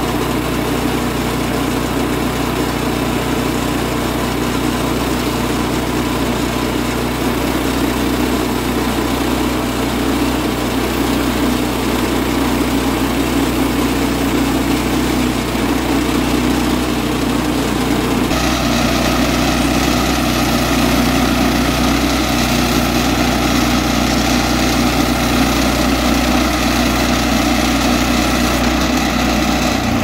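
Woodland Mills HM130MAX portable bandsaw mill running steadily under power, its gasoline engine driving the band blade through a spruce log. About two-thirds of the way in the sound turns brighter, with a higher whine added.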